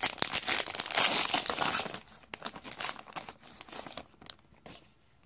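Trading cards being handled and flipped through, a dense papery crinkling with clicks that thins out after about two seconds and fades.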